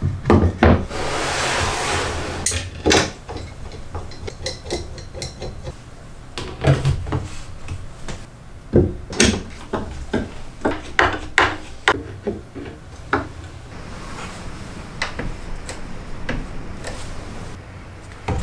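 Plywood jig parts being handled on a benchtop jointer made from an upside-down cordless planer: a run of separate wooden knocks and clicks as pieces are set down and fitted, with a brief sliding rub about a second in. The planer is not running.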